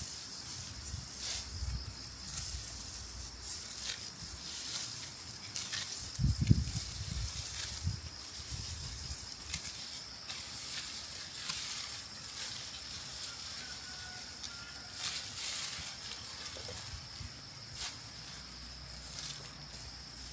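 Dry rice stalks and panicles rustling and crackling as they are handled, with a steady high insect drone behind and a low thump partway through.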